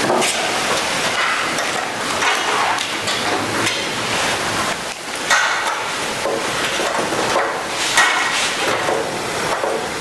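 Metallic clicks and clatter of screws being fitted into a PC case's metal panel by hand, with sharper knocks about five and eight seconds in.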